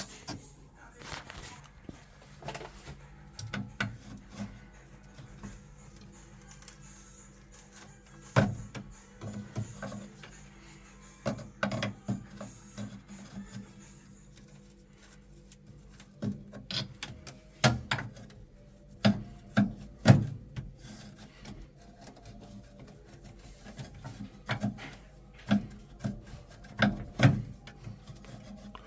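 Irregular knocks, clicks and scraping of metal tools working inside a boiler as a leaking automatic air vent is unclipped and prised out with a screwdriver.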